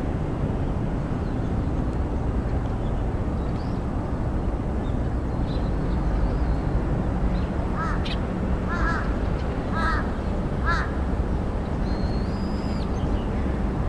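A bird calling four times in a row, about a second apart, over a steady low outdoor rumble of wind and distant traffic.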